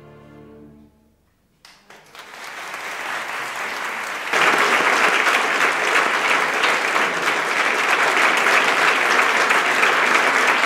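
The orchestra's last held chord dies away about a second in. After a moment's silence, scattered claps start and grow into full audience applause, which jumps louder a few seconds in and stays steady.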